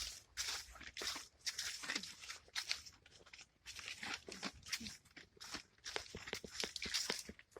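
A quick, irregular run of dry crinkling and crunching rustles, as of crumpled paper or similar dry material being handled.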